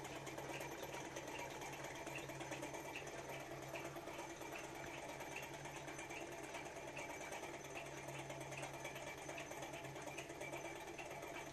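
Toy L-9 thermoacoustic engine running, its single piston driving the flywheel and crank: a faint, steady light mechanical clatter with a regular small tick, over a low steady hum.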